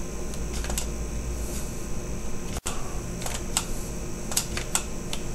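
Scattered light clicks from working a computer mouse and keyboard over a steady low background hum.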